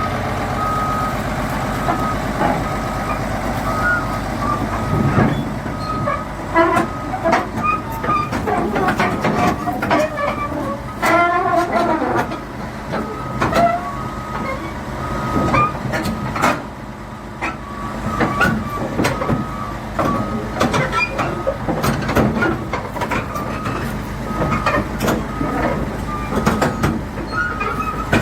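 Caterpillar D8T crawler dozer's diesel engine running as the machine is driven off a trailer, its backup alarm beeping about once a second. Sharp clanks and squeals of the steel tracks and undercarriage come throughout.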